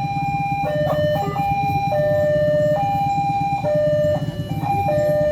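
Railway level-crossing warning alarm sounding as two alternating electronic tones, one higher and one lower. The switch between them comes at an uneven, stuttering pace with short breaks: the crossing alarm is malfunctioning, 'coughing'.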